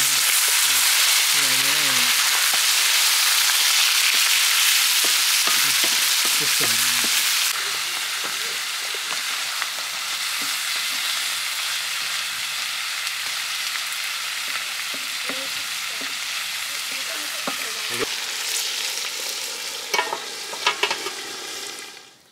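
Chicken curry frying in a hot pan: a steady loud sizzle with the knocks of stirring. The sizzle drops in level about seven seconds in, and there are a few sharp clicks shortly before it stops suddenly.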